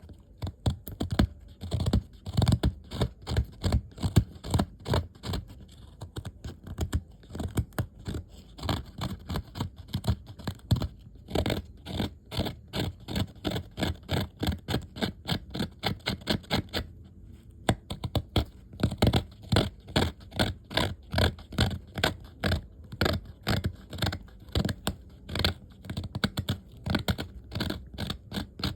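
Blade scraping a small piece of resinous agarwood by hand in quick, repeated strokes, a few a second, paring away the wood to expose the resin. The strokes pause briefly about two-thirds of the way through, then carry on.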